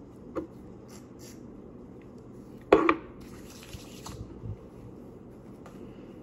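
Handling sounds while hair mousse is worked in: a small click, then a sharp knock near the middle followed by about a second of hiss, then a few soft thumps.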